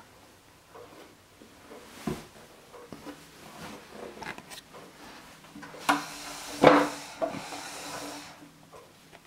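Handling noise close to a mahogany clock case: scattered wooden knocks and rubbing. The loudest knock comes about two-thirds of the way through, followed by a hiss lasting about two seconds.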